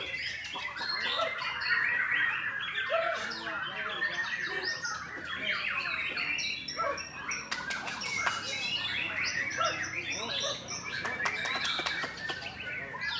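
White-rumped shama (murai batu) singing a continuous, varied song of quick chirps and whistles, studded with sharp rapid-fire notes.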